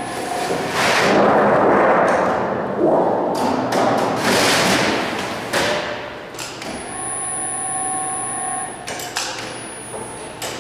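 A thin 24-gauge sheet-metal panel rattles and wobbles loudly, with knocks, as it is handled in a Cidan K25-30 folder. About seven seconds in, a steady machine whine runs for about two seconds.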